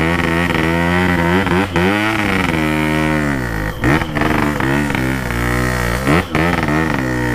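Yamaha RX-King's two-stroke single being revved, its engine note rising and falling again and again, with a few brief dips where the throttle is chopped.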